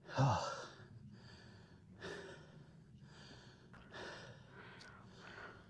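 A person breathing hard after a steep uphill climb: a voiced gasping exhale at the start, then softer breaths about once a second.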